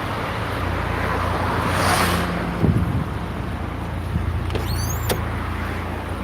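BMW running on the move: a steady low engine hum and a haze of road noise that swells about two seconds in. Near the end come a few brief high-pitched squeaks, the 'ji ji ji' squeal from the newly renewed chassis.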